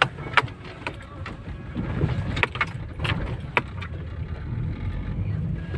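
Opel Zafira driving over a potholed road, heard from inside the cabin: a steady low road rumble with a run of sharp knocks and rattles, about nine in the first four seconds, then smoother. This is the front-suspension knock the owner hears on the passenger side, still there after new struts were fitted.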